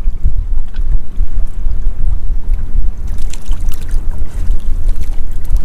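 Wind buffeting the microphone with a heavy, constant low rumble, over the slop of open sea. A few faint light ticks come about three to four seconds in.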